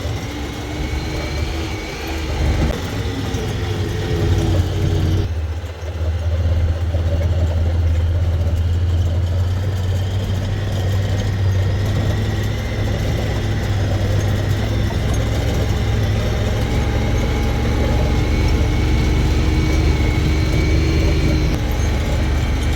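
An engine running steadily, a loud, even low drone.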